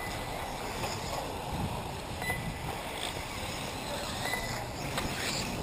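Steady rushing of wind on the microphone, with two brief faint high beeps about two seconds apart.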